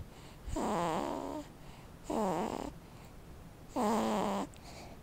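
Sleeping baby making three drawn-out voiced grunts, each under a second and about a second and a half apart, some falling in pitch.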